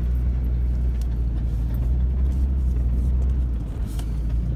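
A truck's engine and tyres droning steadily inside the cab while it drives slowly, at about 10 mph, towing a loaded dump trailer, with a couple of light rattles.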